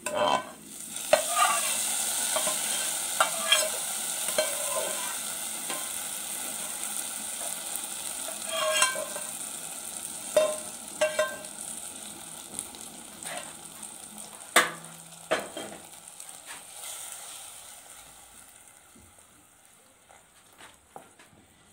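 Hot tadka of spiced fat and whole dried red chillies hitting karhi in a clay pot: a loud sizzle that slowly dies away to near silence, with several sharp knocks and scrapes of the metal pan and stirring spatula against the pot, the loudest a little past the middle.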